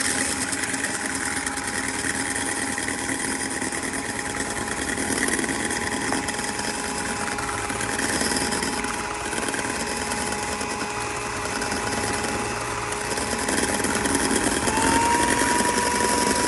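Philips electric hand mixer running steadily, its beaters whipping egg whites in a stainless steel bowl. Its pitch steps up a little near the end.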